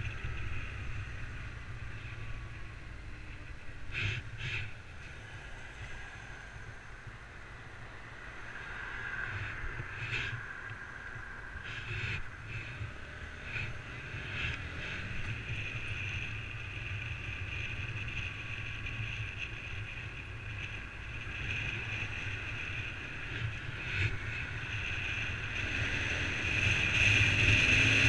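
Honda CBR125's small single-cylinder four-stroke engine running as the motorcycle is ridden along, with wind buffeting the camera microphone and a few knocks from bumps. Near the end the engine note rises and gets louder as the bike accelerates.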